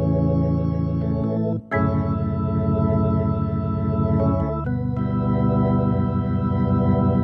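Organ sound from a Korg Nautilus synthesizer playing held chords. The sound briefly drops out about a second and a half in before the next chord, and the chord changes again a little past the middle.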